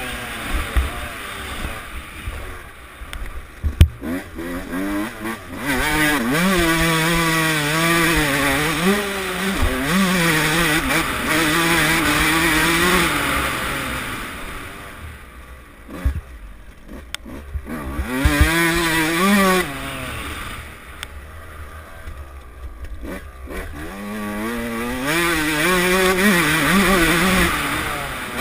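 Suzuki RM144 two-stroke motocross bike engine being ridden hard, revving up and down over and over as the rider works the throttle and gears. Twice in the middle it eases off to a lower, quieter note before revving up again. Low wind rumble on the helmet-mounted microphone, with a few sharp knocks.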